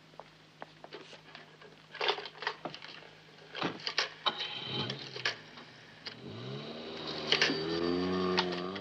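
Black rotary telephone being dialled: faint clicks, then the handset and dial clattering as the finger turns the dial. A sustained rising tone of several pitches swells in during the second half, like a music cue.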